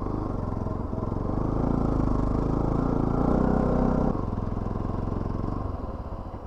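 Motorcycle engine running under load on a rough off-road track; its note climbs for a couple of seconds, then drops suddenly about four seconds in as the throttle eases.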